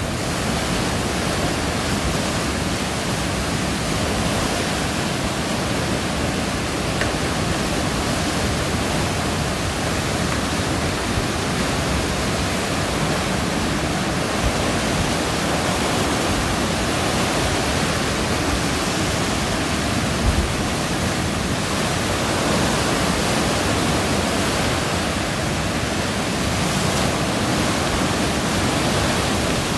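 Potomac River floodwater pouring over Dam 5 and churning in the whitewater below: a steady, loud rush of water.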